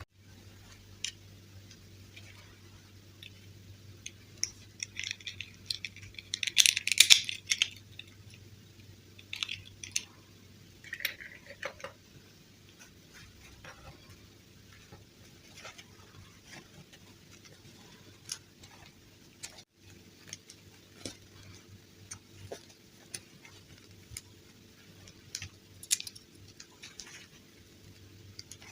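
Small plastic doll parts and packaging being handled: scattered light clicks and taps, with a louder rattling clatter about seven seconds in, over a faint steady hum.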